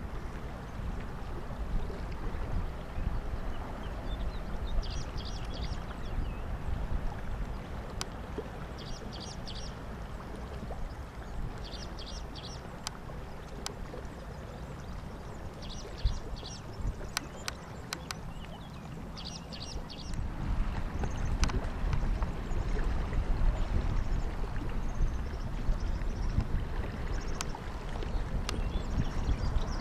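Distant rumble of the Boeing KC-135R Stratotanker's four CFM56 (F108) turbofans, swelling about two-thirds of the way through. Over it a small bird repeats a short burst of quick high notes every three to four seconds.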